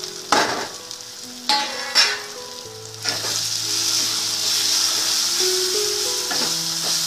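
Onion-tomato masala sizzling in hot oil in a wok, with a few sharp knocks in the first two seconds. From about three seconds in, a wooden spatula stirs freshly added powdered spices through the masala and the sizzle grows louder and steady.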